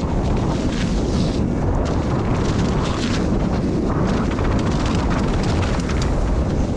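Wind rushing over the microphone of a camera on a mountain bike riding downhill, with tyre noise and scattered knocks and rattles from the bike over rough ground.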